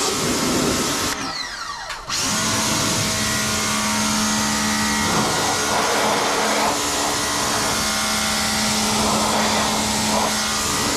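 Ingco 1400W electric pressure washer running with its water jet spraying. About a second in the motor winds down with a falling whine and cuts out, then starts again abruptly a second later and runs steadily.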